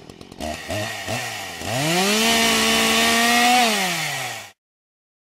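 Chainsaw engine blipped twice, then revved up to a steady high scream and held for about two seconds. Its pitch then drops and it cuts off suddenly.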